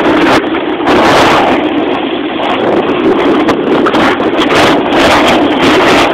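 Loud rushing noise of wind buffeting the camera microphone while moving down a snowy slope, surging and easing unevenly.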